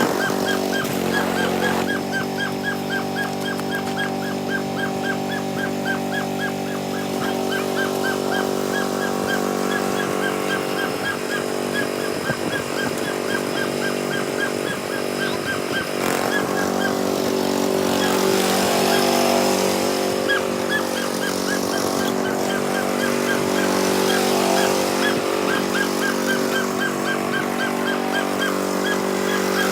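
Riding lawn mower's small engine running steadily as it is driven through mud, with a rapid high-pitched chirp repeating several times a second over it; about halfway through the sound turns rougher and noisier.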